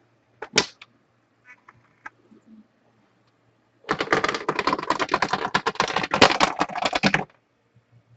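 A burst of rapid typing on a computer keyboard, about three and a half seconds of quick key clicks starting about four seconds in, with a couple of single clicks before it.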